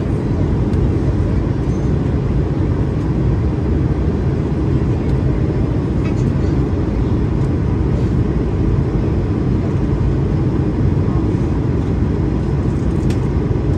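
Steady low cabin roar of an Airbus A220-300 in flight, engine and airflow noise heard from inside the cabin, with a faint steady whine above it.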